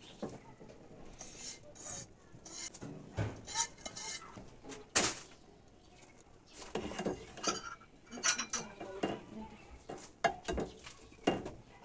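Perforated steel spoon stirring seviyan into thickening milk in a steel pot, scraping and clinking against the pot in scattered knocks.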